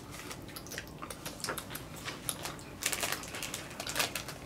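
Irregular crackling and clicking from eating a crunchy corn puff snack, with its plastic snack bag rustling; a denser cluster of crackles about three seconds in.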